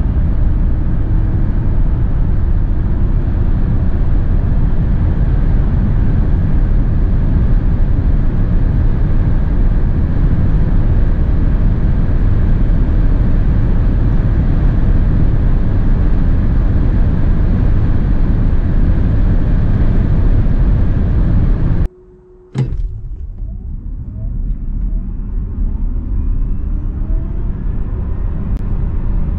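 Inside a Nissan Ariya 87 kWh 2WD electric SUV: loud, steady road, tyre and wind noise while running near its top speed of about 165 km/h on winter tyres. About 22 seconds in the sound cuts out for a moment. Then a new acceleration begins, the noise building with faint whines from the electric motor rising in pitch.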